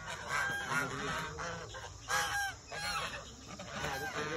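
A flock of white domestic geese honking: many short calls overlapping one another, loudest about two seconds in.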